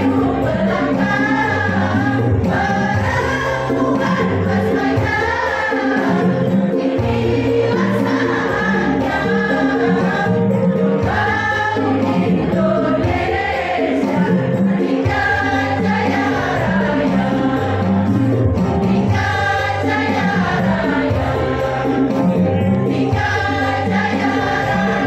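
Women's choir singing a song together to music, voices moving in sung phrases over a steady low accompaniment.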